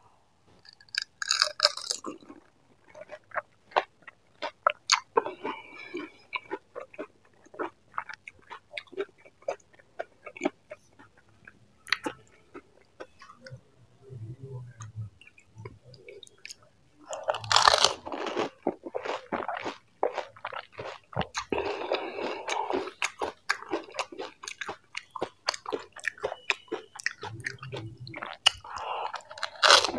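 Close-miked chewing and crunching of pani puri: crisp, hollow fried puris bitten and chewed in a steady run of crackling crunches. Louder bites come about two seconds in, a little past the middle and at the very end.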